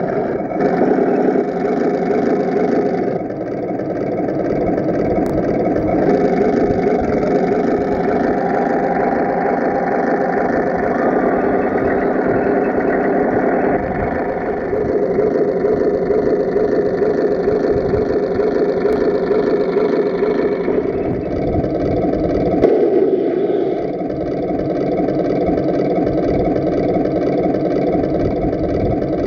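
Tamiya M26 Pershing radio-controlled model tank driving, its simulated tank-engine sound running continuously from the onboard speaker along with the drive gear and tracks. The engine sound shifts in pitch and level several times as the tank moves and manoeuvres.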